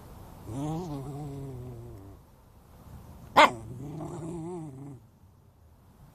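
Dog growling in two long, wavering calls. A sudden sharp sound at the start of the second call, about three and a half seconds in, is the loudest moment.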